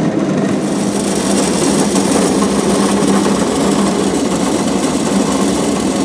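Roller mill driven by a 7.5 horsepower electric motor running steadily as it rolls oats and beans, with a hiss of rolled grain pouring out that gets louder about half a second in.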